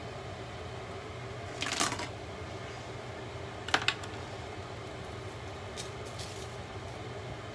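Spice shakers being handled while seasoning: a short rattle about two seconds in, two sharp plastic clicks near four seconds and faint shaking a little later, over a steady low hum.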